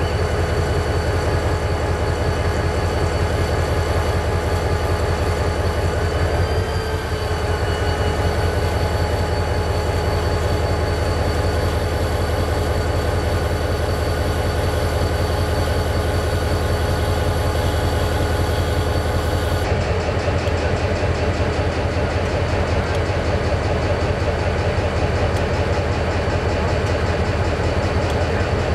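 EMD four-axle diesel locomotives idling: a steady low engine rumble with a steady high whine over it, and a brief wobble in pitch about seven seconds in. At about twenty seconds the sound changes abruptly to a second locomotive of the same kind idling.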